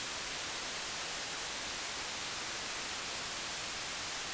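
Steady hiss of a camera microphone's recording noise, even and unchanging, with no other sound.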